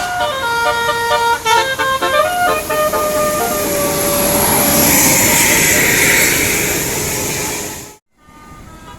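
Bus 'telolet' multi-tone musical air horn playing a tune of short stepped notes, then a loud rushing noise for a few seconds that cuts off abruptly about eight seconds in.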